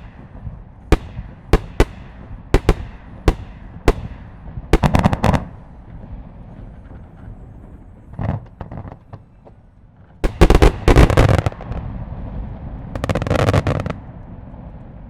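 Fireworks display: a string of single sharp shell bursts about every half second for the first four seconds, then dense crackling volleys of many rapid bursts, the loudest a little past the middle and another near the end.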